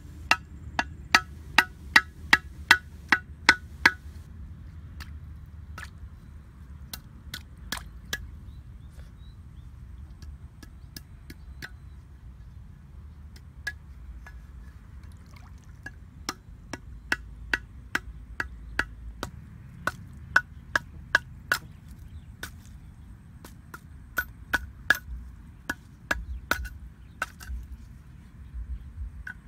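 Machete chopping wooden sticks: a quick run of about ten sharp strikes, roughly three a second, in the first four seconds, then scattered single cuts, and two more runs of strikes in the second half, over a steady low rumble.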